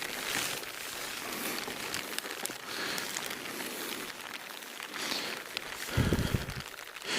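Rain falling in a forest: a steady hiss of rain with many small ticks of drops, and one dull low thump about six seconds in.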